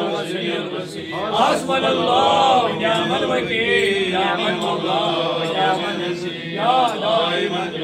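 A man's voice chanting a dua, a Muslim prayer of supplication, in a melodic, drawn-out recitation that runs on without a break.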